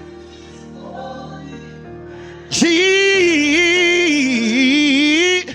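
Slow gospel worship music: soft, held instrumental chords, then about two and a half seconds in a solo voice comes in loud, singing one long drawn-out note with vibrato that bends up and down and stops just before the end.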